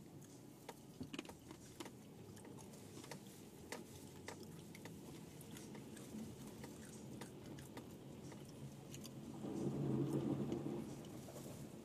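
Faint scattered clicks and crunches over a low rumble inside a car rolling slowly over an icy, slushy lane. A low hum swells briefly about ten seconds in.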